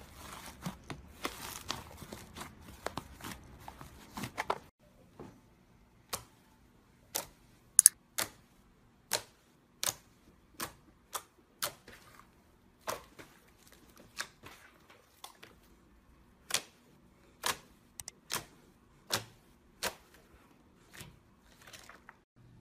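Fluffy blue slime squished by hand in a plastic tub, with dense crackling. About five seconds in this changes to glossy pink slime poked and pressed with fingertips, which gives sharp single pops about once a second.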